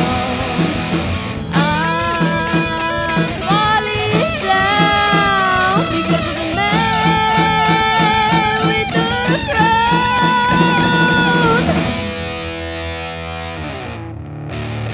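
Live rock band playing: electric guitars, drums and keyboard under long held, wavering melody notes. About twelve seconds in the drums and cymbals drop out and the music falls quieter, leaving a steady electric guitar passage.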